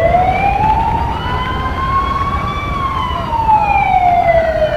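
A siren wailing: its pitch rises slowly for about two and a half seconds, then falls slowly back down toward the end, over a steady low rumble.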